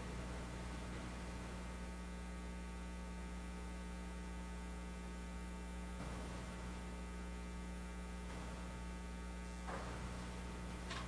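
Steady electrical mains hum with a stack of higher overtones on an audio line with no programme signal, while the capture card shows colour bars for no video input.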